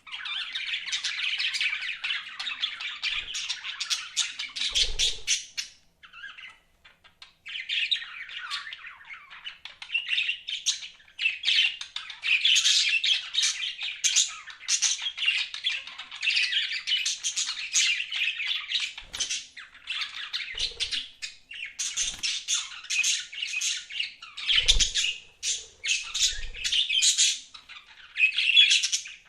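Budgerigars chattering: continuous rapid warbling chirps and squawks, with a brief pause about six seconds in and a few soft low thumps.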